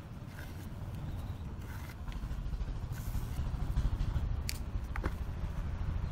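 A low background rumble grows steadily louder. Near the end come a couple of light clicks as a marker pen is set down on the concrete floor.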